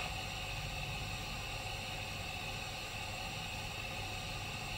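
Standing-engine background sound of a DCC-sound Big Boy steam locomotive model, played from its LokSound decoder through the tender and chimney speakers: a steady low rumble with a faint hiss.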